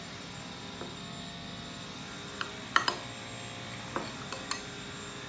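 A metal spoon clinking several times against a glass food container, the loudest pair of clinks about halfway through. A steady hum runs underneath.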